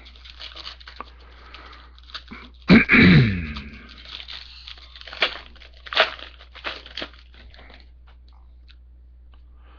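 Foil trading-card pack wrappers crinkling and cards being handled, in short crackling clusters that die away about eight seconds in. One loud cough or throat-clear about three seconds in.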